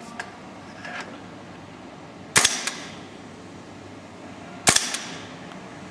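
Inokatsu M5 gas blowback airsoft rifle on green gas firing two single shots about two seconds apart, each a sharp crack followed by a quick fainter click.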